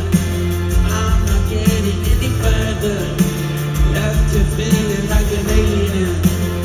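Rock band playing live in an arena, heard from the crowd: electric guitars over a held bass line and a steady kick-drum beat.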